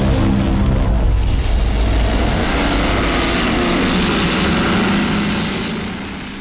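Powerboat engine running at speed, its pitch sliding, the sound fading out near the end.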